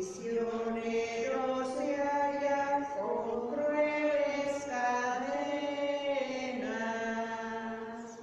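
A single voice singing a slow Good Friday hymn for the veneration of the cross, in long held notes that step up and down in pitch, with no instruments heard.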